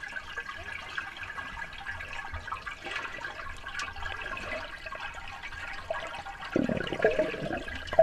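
Swimming-pool water heard underwater: a steady, muffled hiss with faint ticks, then, about a second and a half before the end, a louder rush of bubbling, churned water.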